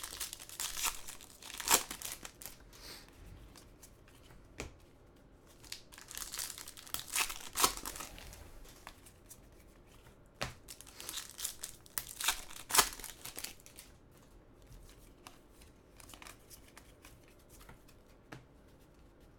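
Trading-card pack wrappers crinkling and tearing as packs are opened and cards handled. There are bursts of rustle with sharp snaps, busiest in the first two thirds, dying down near the end.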